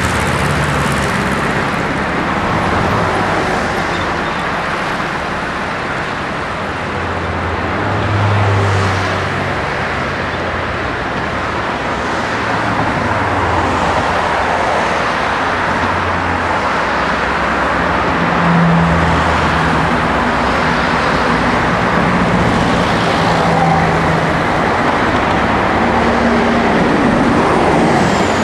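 Steady road traffic: cars passing on a multi-lane road, a continuous rush of noise with a low engine hum that swells and fades every few seconds as vehicles go by.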